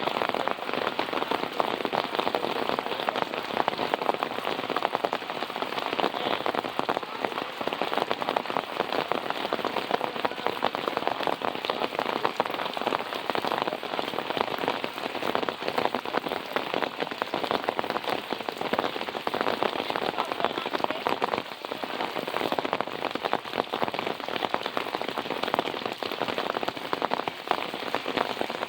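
Steady rain falling, a dense patter of many small drops hitting a surface.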